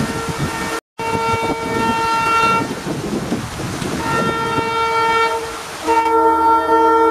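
WDP4D diesel locomotive's multi-tone air horn sounding in three blasts, each lasting a second or two, the last the loudest and still sounding at the end. Underneath is a steady hiss of heavy rain.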